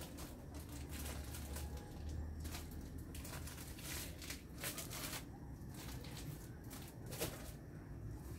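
Commercial planetary stand mixer running with a low motor hum while kneading ensaymada dough, with irregular clicks and rustles throughout.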